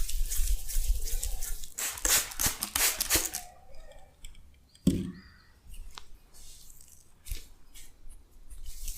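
Hands rubbing shaving foam over a face during a face massage: dense crackly rubbing for the first three seconds or so, loudest near the end of that stretch, then one dull thump about five seconds in and a few light taps.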